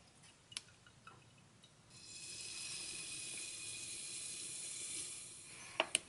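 AeroPress plunger being pressed down into a glass: a light click about half a second in, then a faint steady hiss from about two seconds in that lasts some three and a half seconds, air forced through the wet coffee grounds and filter as the plunger reaches the end of its stroke. Two small knocks near the end.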